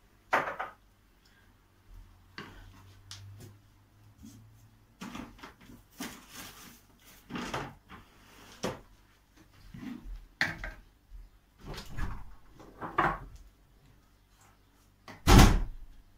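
Metal ladle scraping and knocking against a steel pot while milk pudding is ladled out and poured over etimek in a glass baking dish, in a series of separate scrapes and clinks, with a louder clunk near the end as the pot is handled.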